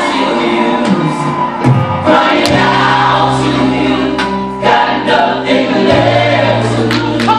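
Gospel music: a choir singing over steady low bass notes, with sharp hits now and then.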